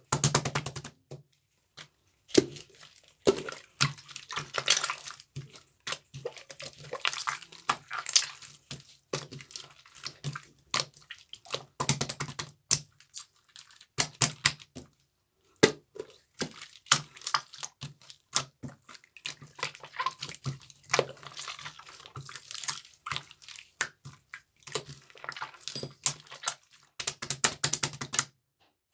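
Slime being squeezed, stretched and pressed by hand, making an irregular run of wet clicks, pops and squishes with short pauses between.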